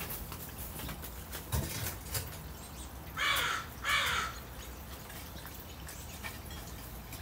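Northwestern crow giving two caws in quick succession about three seconds in. Faint clicks of a beak pecking at food in a ceramic dish are scattered around them.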